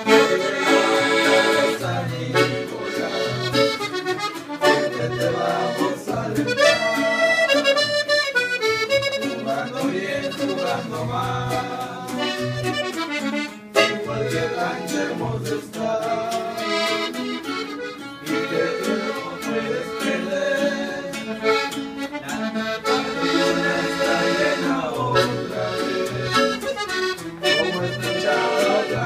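Diatonic button accordion playing a norteño tune, a busy melody over pulsing bass notes.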